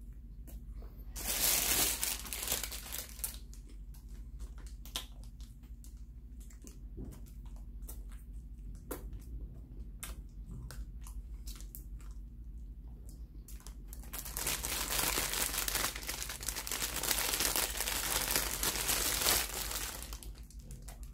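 Clear plastic bread bag crinkling as it is handled, in two long loud stretches about a second in and from about 14 s to 20 s. In between, quieter small clicks of chewing bread.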